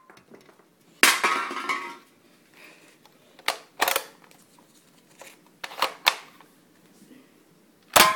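Toy foam-dart blaster being fired twice, about a second in and near the end, each shot a loud snap with a short metallic ring. In between come sharp plastic clacks as its priming handle is pulled back and pushed forward.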